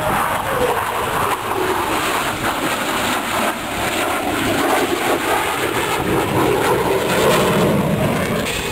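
Propeller airplane's engine droning as it flies past. Its pitch drops in the first second, then holds steady.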